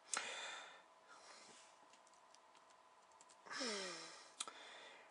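A man breathing out heavily twice, the second a sigh that ends in a short falling hum, with a sharp click near the start and another near the end.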